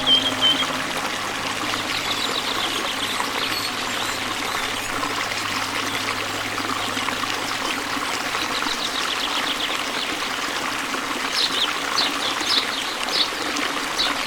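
Stream water trickling and running steadily, with small birds chirping in quick rapid runs of notes that come more often near the end. A low held tone fades out about halfway through.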